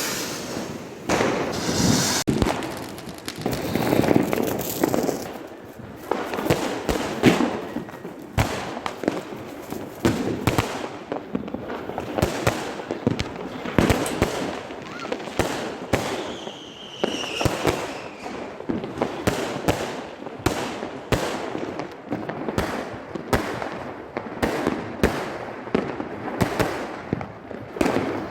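Fireworks and firecrackers going off in a fast, irregular string of bangs and crackles, with a short whistling glide about halfway through.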